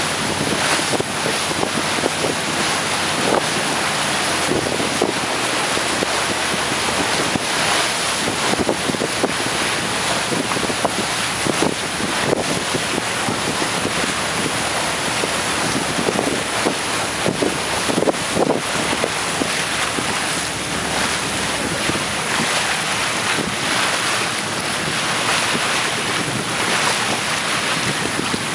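Churning, foaming water rushing in a steady, even noise.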